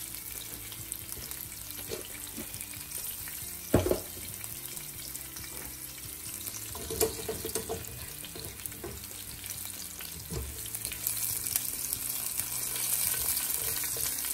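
Cumin seeds, nigella seeds and slit green chilies sizzling in hot oil in a nonstick pan as a silicone spatula stirs them: a steady hiss that grows louder near the end, with a few knocks of the spatula against the pan, the loudest about four seconds in.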